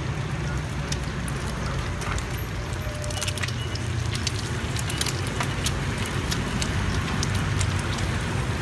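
Cubes of rice-flour cake and egg sizzling in hot oil on a wide flat pan, with many scattered sharp pops of spitting oil over a steady low rumble.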